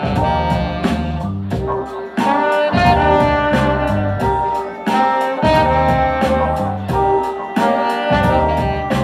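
A live hip hop/groove band playing an instrumental passage: saxophone and trombone play held horn lines over an electric bass line and a steady drum beat.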